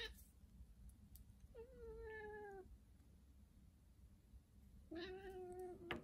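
Sphynx cat meowing twice at birds outside the glass, two drawn-out calls of about a second each, the first sliding slightly down in pitch. A light click comes near the end.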